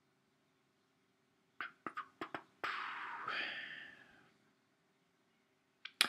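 A person at the microphone: a few quick clicks, then a long breathy exhalation like a sigh that fades out, and another pair of clicks near the end.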